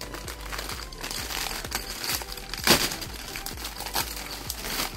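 Thin clear plastic bag crinkling as a plastic model kit's runners are handled and pulled out of it, with one louder snap a little under three seconds in.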